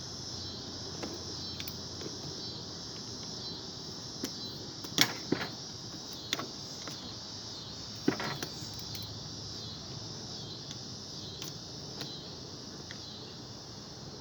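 Steady insect chorus, a high pulsing trill, with a few sharp metallic clicks from tools or parts being handled: two about five seconds in and one about eight seconds in.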